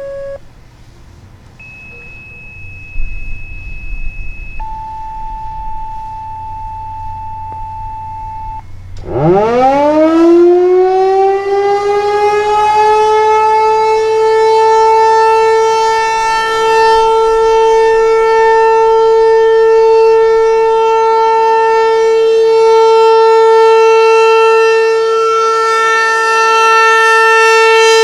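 Federal Signal 508 outdoor warning siren winding up for the steady Alert test signal. About nine seconds in, it climbs quickly from a low pitch, levels off within a few seconds, and then holds one loud steady tone.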